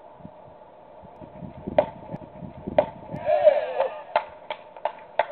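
Edited-in broadcast sound effects for a strikeout graphic: two sharp knocks about a second apart, a whooshing sweep, then a quick, even run of ticks, about three a second.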